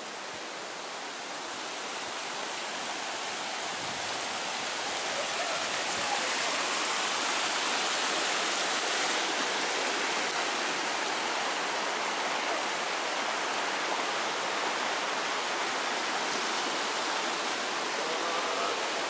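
Shallow mountain stream rushing over rocks in small rapids, a steady hiss that grows louder over the first several seconds and then holds.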